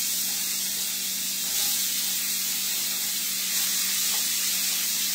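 Steady hiss of food cooking, steam and sizzle from the waffle maker and pan, with a faint steady low hum underneath.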